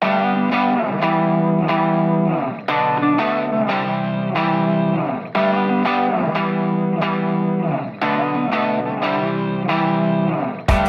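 Background guitar music playing a short phrase that repeats about every two and a half seconds, with drums coming in near the end.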